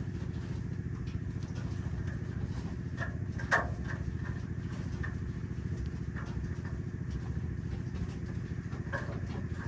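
A steady low machine hum, with a few light clicks and one louder rattle about three and a half seconds in as civets move about their wire-mesh cage.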